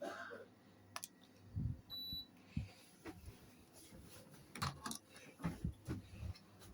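A Carrier air conditioner gives one short, high electronic beep about two seconds in, amid scattered faint clicks and knocks.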